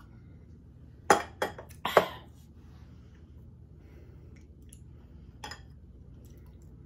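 A drinking glass set down on a table, making a quick cluster of sharp knocks and clinks about a second in, followed a few seconds later by one lighter clink of a fork against the dishes.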